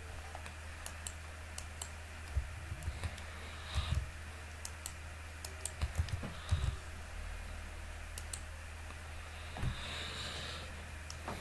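Typing on a computer keyboard: scattered, uneven keystrokes and clicks, over a steady low hum.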